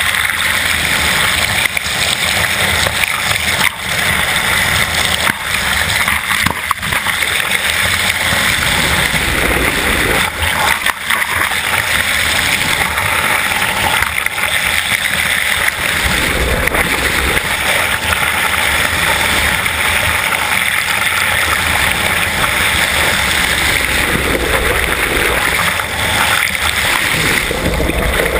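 Water rushing past a bow-mounted underwater camera on a moving sailing yacht: a steady, loud hiss, with a few sharp clicks in the first half.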